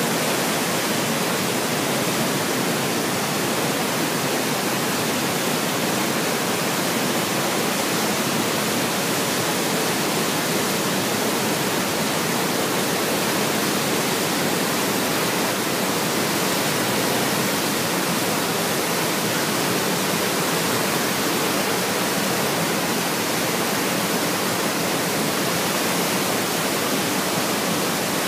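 River in flood pouring over a weir: a steady, unbroken rush of turbulent water.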